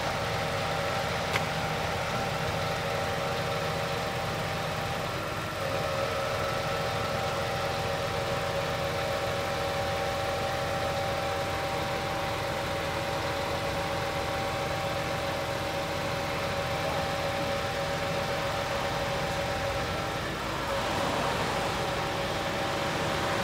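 Scania P 400 crane truck running while parked: a steady engine hum with high whining tones on top. The whine shifts about five seconds in and again about twenty seconds in.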